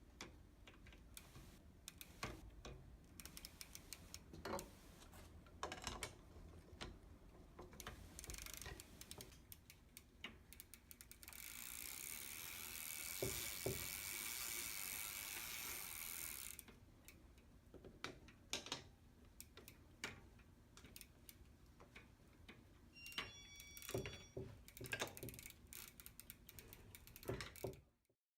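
Scattered metal clicks and clinks of a pedal wrench tightening a bicycle pedal onto its crank arm, with a steady hiss lasting about five seconds midway.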